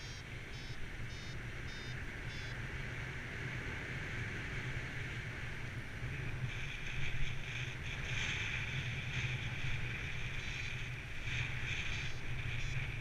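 Wind rushing over the microphone of a paraglider in flight, with a low buffeting rumble that grows louder about six seconds in. A quick run of high electronic beeps, about two to three a second, sounds in the first couple of seconds, typical of a flight variometer signalling lift.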